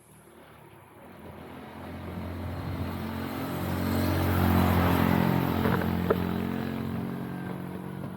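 A motor vehicle engine passing by: it grows louder from near silence, is loudest about halfway through, then slowly fades.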